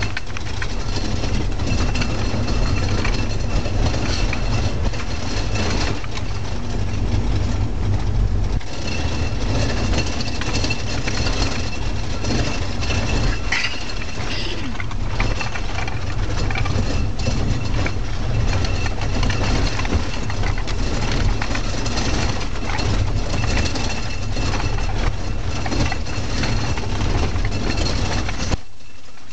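Car interior noise while driving over a rough, unsealed road: a steady low engine and road rumble with constant rattling and knocking from the body as it bumps along. The low rumble drops off abruptly near the end.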